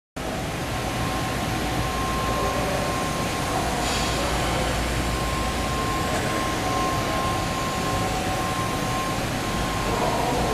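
Machinery running steadily, an even mechanical noise with a constant high whine. A brief hiss comes about four seconds in.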